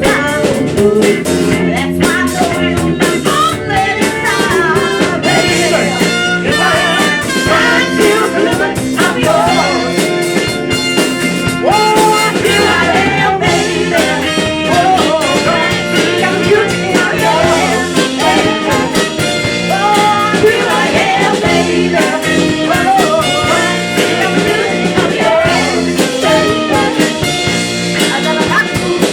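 Live band playing a song, with electric guitar, drum kit and singing.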